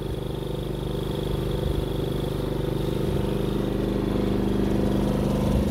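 Fuel-polishing rig's pump running with a steady hum, growing slightly louder, as it draws diesel through a probe hose from the bottom of a boat's fuel tank and through its filters.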